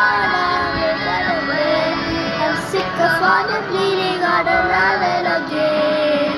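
A young girl singing a melody over a backing track, her voice affected by a cough.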